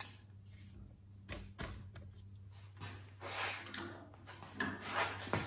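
Tongue-and-groove pliers working on a brass oxygen regulator held in a bench vise: a few sharp metal clicks and short scraping rasps as the jaws are set and bite on the brass, with the loudest scrapes about three and five seconds in.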